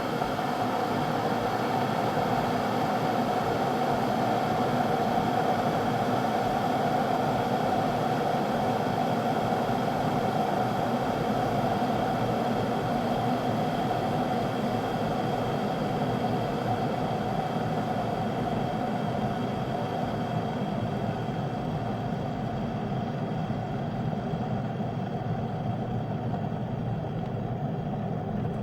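Electric kettle heating water to the boil: a steady rushing, rumbling noise with a strong mid-pitched hum. Its higher hiss fades over the last several seconds.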